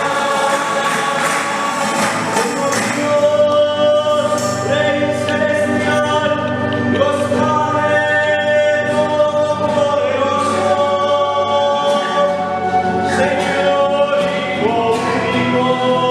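A choir singing a hymn together, the voices holding long, sustained notes that shift in pitch every second or two.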